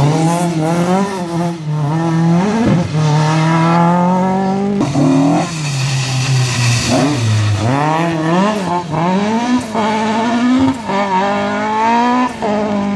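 Mk2 Ford Escort rally car engines revved hard through a hairpin. The pitch climbs and then drops sharply again and again as the cars change up through the gears, first one car pulling away, then a second braking into the corner and accelerating out.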